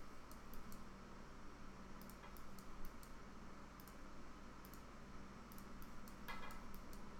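Faint, irregular computer mouse clicks over a low steady hum, as corner points are placed one after another to draw a polygon in modelling software.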